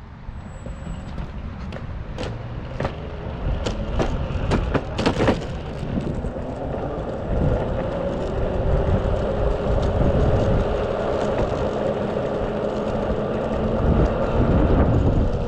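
Single-motor belt-drive electric skateboard (Mototec 600W) pulling away and gathering speed. A few sharp clicks and knocks as it rolls off, then a motor and belt whine that rises and levels out, over a low rumble from the wheels on the road.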